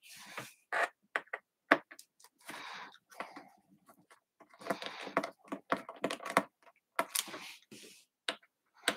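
Small screwdriver working the captive screws out of a Framework laptop's aluminium bottom cover: irregular small clicks and short scrapes of the bit on the screw heads and case.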